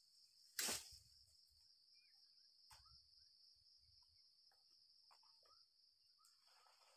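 Faint, steady high-pitched drone of an insect chorus, with one sharp knock about half a second in, a few faint chirps, and a brief soft rustle near the end.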